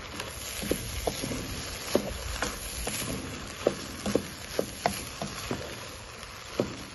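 Wooden spoon stirring and folding rice in a pot, with irregular light knocks and scrapes of the spoon against the pot's sides, several a second, over a steady hiss.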